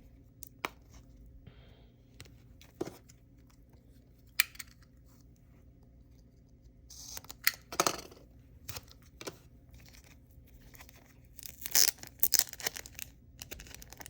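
Mail packaging being handled and torn open by hand: a few scattered clicks and taps, a rustling tear about seven seconds in, and a louder run of tearing and crinkling near the end.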